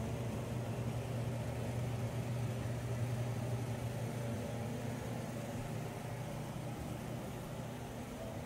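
A machine running with a steady low hum.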